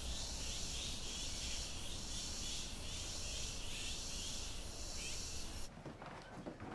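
Steady high-pitched drone of insects in summer parkland, with no voices. It cuts off abruptly near the end, leaving quieter indoor room tone.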